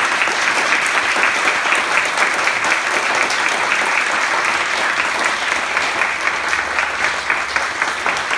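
Audience applauding, a dense steady clapping of many hands that goes on without a break.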